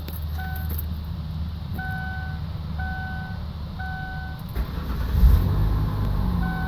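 Ford Windstar's dashboard chime beeping over and over, then about four and a half seconds in the starter cranks and the 3.8 L V6 catches and settles into a steady idle. This is the first start on a new ignition coil pack, fitted to cure a misfire.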